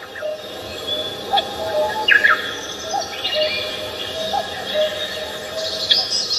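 Several birds singing together. A low short call with a rising end repeats about every second and a half beneath higher chirps, whistled notes and quick downward trills.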